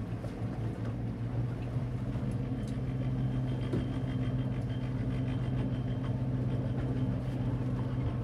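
An engine running steadily with a low, even hum that grows a little louder over the first couple of seconds, then cuts off suddenly at the end.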